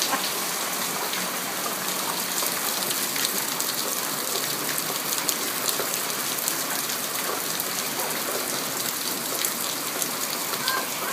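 Steady rainstorm: rain falling in a continuous hiss, with many individual drops ticking against surfaces.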